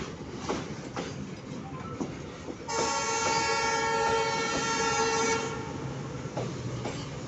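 Container freight wagons rolling past with a rhythmic clatter of wheels over the rail joints. About three seconds in, a train horn sounds steadily for nearly three seconds over the rumble.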